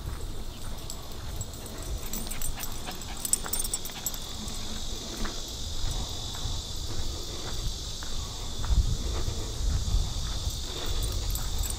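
Steady high-pitched insect buzz in summer woodland over the tick and rustle of footsteps on a dirt trail, with a low rumble that grows in the second half.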